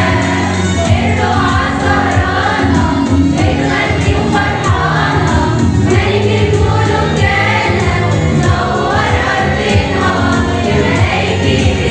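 An Arabic Christian hymn, sung by voices over instrumental accompaniment with sustained bass notes and a steady beat.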